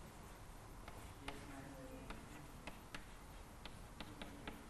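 Chalk writing on a blackboard: faint, irregular sharp taps and clicks as the chalk strikes and moves across the board, about three a second.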